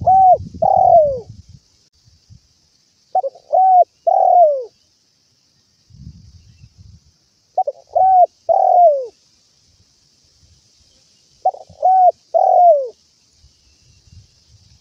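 Spotted dove cooing: four phrases about four seconds apart, each a few short notes followed by a longer note that falls in pitch.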